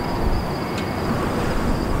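Outdoor ambience dominated by wind buffeting the microphone, a gusty low rumble over steady hiss, with a thin steady high whine and one short click a little under a second in.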